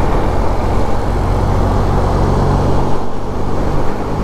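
Motorcycle engine running steadily at road speed, with wind rushing over the helmet microphone; the engine note eases about three seconds in.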